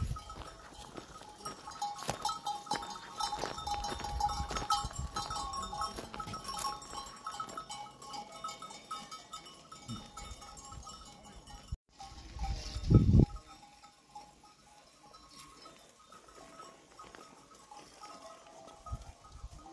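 Bells on a walking flock of sheep and goats, clinking and ringing over and over with many small clicks, fainter in the second half. A brief loud low rumble about 13 seconds in.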